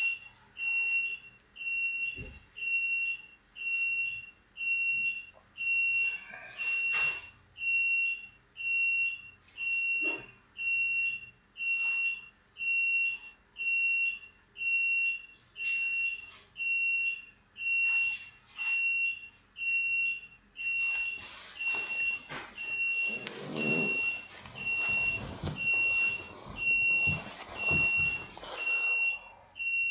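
An electronic beeper sounds a high, steady beep about once a second, evenly spaced. Several sharp clicks come early on, and handling and rustling noises crowd in from a little past the middle.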